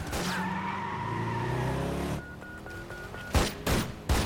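Action-film soundtrack: music score for about two seconds, then a short run of about five quick electronic beeps, then three loud handgun shots in the last second.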